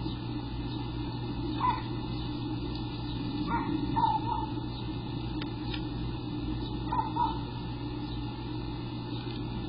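Eastern bluebird nestlings giving short begging chirps in three brief bouts while they gape, over a steady low hum.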